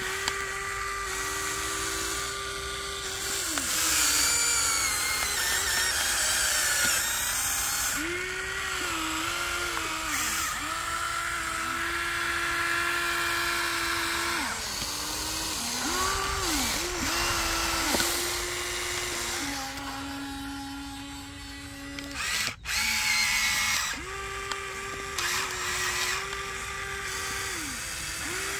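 Small electric motors of a Huina radio-controlled toy excavator whirring in a high whine as the boom, arm and bucket are worked. The whine starts and stops repeatedly and steps up and down in pitch as different functions are run.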